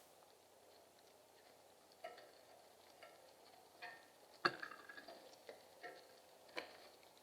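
Feeding birds pecking at food on a hard surface: faint, irregular sharp taps, each with a short ring, the loudest about four and a half seconds in.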